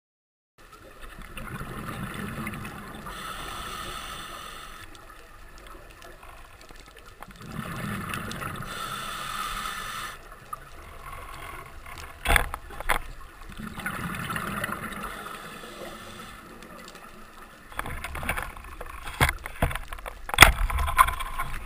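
A scuba diver breathing underwater through a regulator: slow cycles of hissing breath and bubbling that swell and fade about every six seconds. Several sharp clicks come in the second half.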